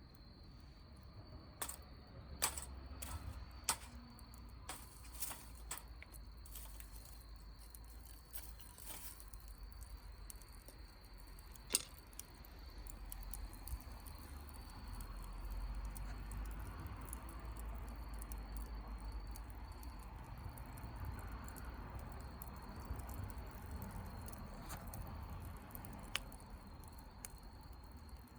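Wood campfire crackling, with scattered sharp pops that are most frequent in the first dozen seconds. A low rumbling noise swells in the second half.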